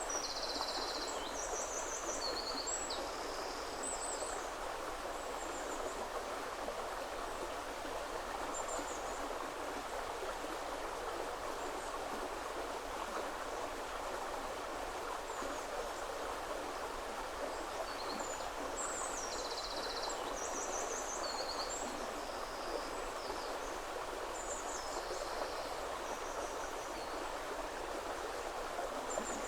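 Woodland river flowing steadily over its bed, a constant rush of water. A bird sings high, quick phrases over it in two spells, in the first few seconds and again about two-thirds of the way through.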